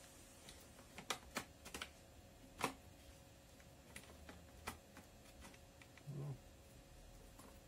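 Faint, irregular clicks and taps of a thin metal tool against a chainsaw's plastic fuel tank as it fishes inside for the fuel filter, about a dozen light ticks with the sharpest a little over two and a half seconds in.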